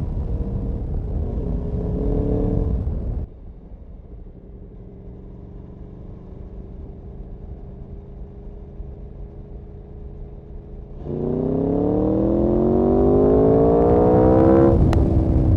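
Aprilia Tuono motorcycle engine on the move: the throttle closes suddenly about three seconds in and the engine runs quieter, its pitch slowly falling as it coasts. About eleven seconds in the throttle opens and the revs climb steeply through a gear, and a quick upshift near the end drops the pitch before it climbs again.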